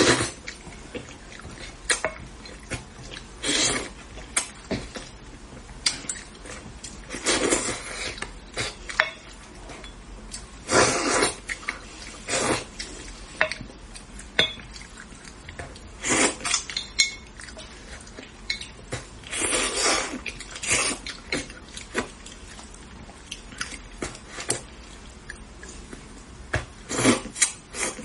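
Close-miked eating of braised tilapia: irregular wet bursts of slurping and chewing every few seconds, with short clicks of utensils against the dish in between.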